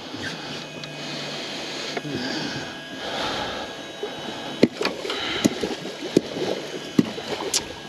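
Handling noise at a boat's side as a landing net on a metal pole is worked over the water: a low steady hum over the first two seconds, a hiss of water and wind, and a few sharp knocks in the second half.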